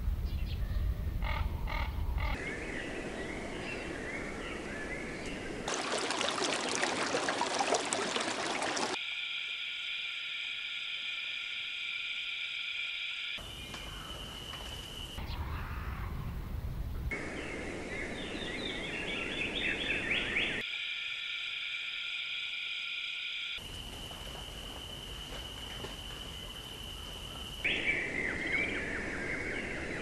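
Wildlife sounds made of short nature clips that change abruptly every few seconds. Bird chirps and calls alternate with stretches of steady high-pitched animal trilling.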